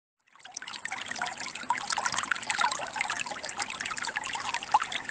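Shallow water trickling and babbling over pebbles: a dense, bubbly patter that fades in during the first second, then runs steadily.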